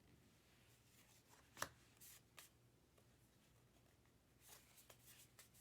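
Faint handling of trading cards against near silence: one sharp tap about a second and a half in, then a few soft slides and taps, with a cluster of light rustles near the end.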